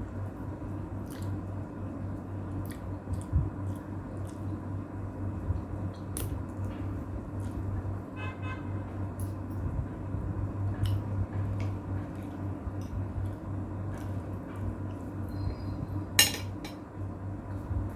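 Eating sounds: utensils and dishes clicking now and then over a steady low hum. A short toot, like a distant vehicle horn, sounds about eight seconds in.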